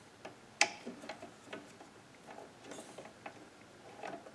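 Scattered light metallic clicks and ticks from hand-adjusting a mini lathe, bringing the tool bit in against a chainsaw cylinder held in the chuck, with one sharper click a little over half a second in.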